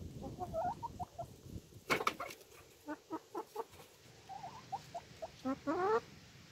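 Hens clucking with short, soft calls, a sharp click about two seconds in, then a quick run of clucks around three seconds in and a louder rising call near the end.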